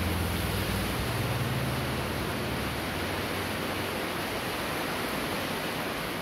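Heavy rain pouring steadily onto a wet, flooded concrete street, a dense, even hiss. A low hum under it fades out about two seconds in.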